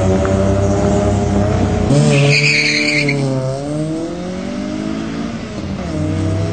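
Car engine held at high revs, then a roughly one-second tyre squeal about two seconds in as the car launches. After the squeal the engine pitch dips and climbs again as it accelerates.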